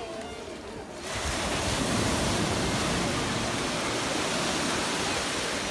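North Sea surf washing in over the shallows at the water's edge: a rush of breaking water that swells up about a second in and then holds steady.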